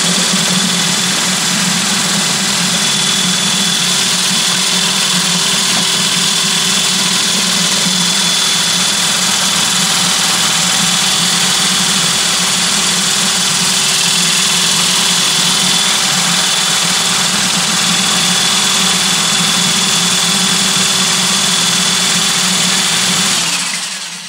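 High-speed electric glaze mixer running steadily, its stainless-steel paint-roller frame whipping copper red glaze in a bucket. It winds down and stops near the end.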